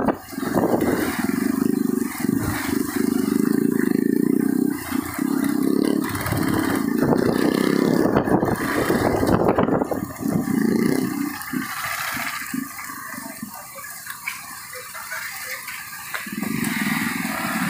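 Motorcycle riding on a rain-soaked road: a steady rush of wind and wet-tyre noise with the engine beneath. It eases for a few seconds in the second half, then picks up again.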